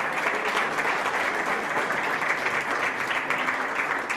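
Applause: a group of people clapping steadily.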